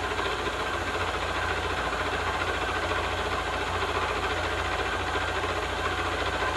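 Vertical knee milling machine running with its cutter taking a heavier cut, about 23 thousandths deep, off a low-carbon steel block: a steady mix of motor hum and cutting noise.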